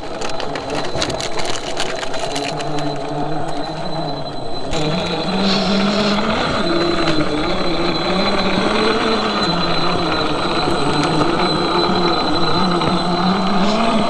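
Scale RC rock crawler's electric motor and drivetrain gears whining, the pitch rising and falling as the throttle is worked. For the first few seconds it comes with a dense crackle of tyres grinding over rock and dirt.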